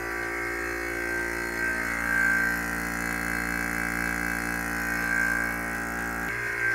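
Vacuum pump running steadily, a constant hum with many even overtones, as it draws the air out of an acrylic vacuum chamber. The lower part of the hum shifts slightly a little before the end as the pressure inside drops.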